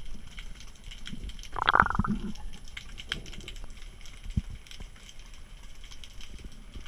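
Underwater ambience heard through a camera's waterproof housing: a steady crackle of faint clicks over a low rumble, with a short, louder gurgling burst about two seconds in.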